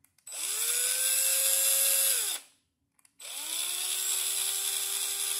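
Black and Decker 20V cordless drill spinning a hole saw with no load, run twice. Each time the motor whirs up with a rising whine and settles; the first run winds down after about two seconds, and the second runs steadier at a lower pitch.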